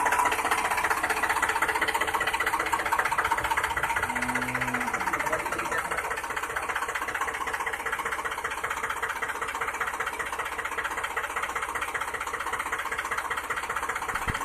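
Small motor of a miniature DIY model tractor running steadily with a fast, even clatter. A brief low hum comes in about four seconds in.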